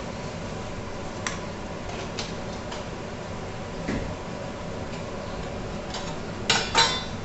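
Masala gravy cooking quietly in a kadhai, a steady low hiss with a few light clicks, then a sharp double clatter of steel near the end as a stainless steel spice box is opened.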